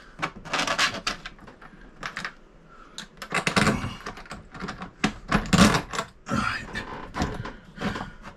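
Irregular knocks, clicks and rustling from hands working a toilet seat and RV bidet into place with its mounting hardware.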